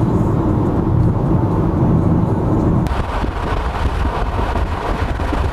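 Steady road and engine noise in the cabin of a moving Mercedes SL500. About three seconds in it changes abruptly to a hissier mix of wind and tyre noise.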